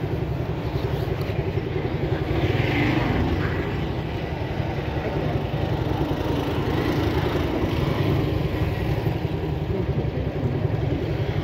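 Motorcycle engine running at a steady pace while riding, under a steady low rumble of wind and road noise.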